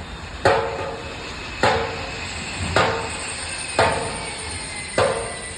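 Forging screw press striking: five heavy metallic blows about a second apart, each ringing briefly, over a steady low hum.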